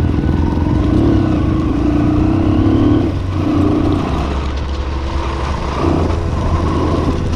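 CF XZ250RR dirt bike engine running as the bike is ridden, the pitch shifting with throttle and easing off about three seconds in.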